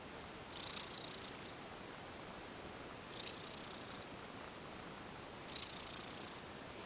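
Domestic cat purring steadily while being massaged, with a brief higher rustle recurring about every two and a half seconds.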